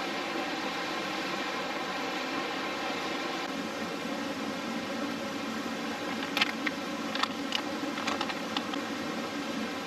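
Campfire crackling: a cluster of sharp pops and cracks from about six seconds in, over a steady rushing background.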